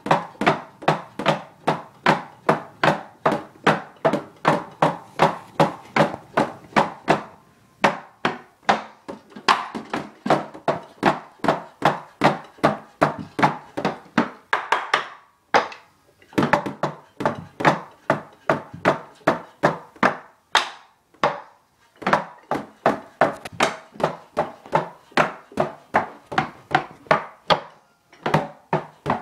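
Wooden drumsticks clacking on the rubber pads of an Alesis electronic drum kit, a fast, even beat of about four hits a second with a few short breaks. Only the dull knock of stick on pad is heard, since the kit's drum sounds go to the player's headphones.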